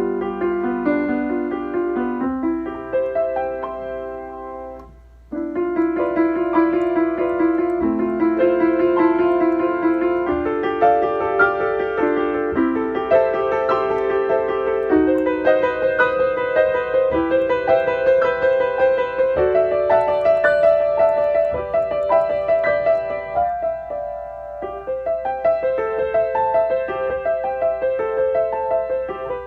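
Piano playing a simple piece at a slow tempo, one note or chord at a time with notes left to ring. About five seconds in the sound dies away and stops for a moment, then the playing starts again.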